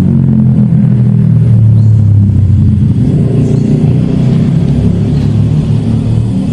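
A motor engine running loud and steady, swelling slightly a second or two in.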